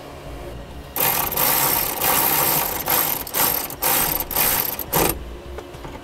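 Cordless power driver with a 10 mm socket running a ground bolt back into the vehicle body, for about four seconds with a few brief breaks.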